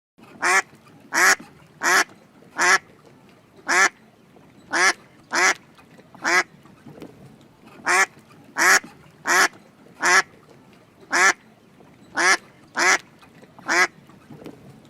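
A duck quacking repeatedly: about sixteen short, loud quacks, roughly one every half second to a second.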